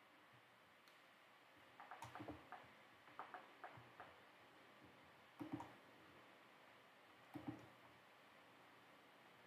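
Near silence broken by faint clicks at a computer: a quick run of them about two seconds in, then a few single ones later.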